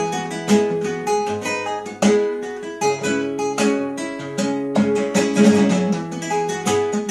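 Background music: plucked acoustic guitar playing a tune with a steady beat.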